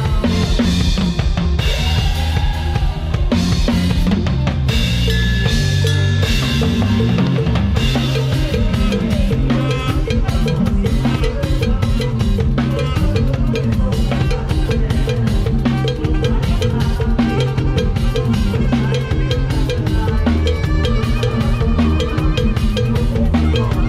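Drum kit played in an Isan lam sing band: kick drum, snare and rimshots in a steady driving beat, with bass and melody instruments playing along.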